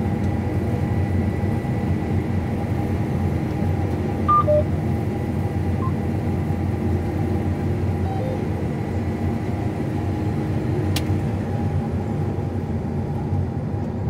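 John Deere combine running steadily while cutting wheat, heard from inside the cab: a constant low drone with several steady tones over it. A couple of short blips sound about four seconds in, and a single click near eleven seconds.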